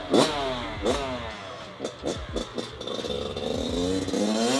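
2022 Kawasaki KX112 dirt bike's two-stroke single-cylinder engine revving in short rising bursts as it pulls away. It grows fainter in the middle, then louder again near the end as the bike comes back.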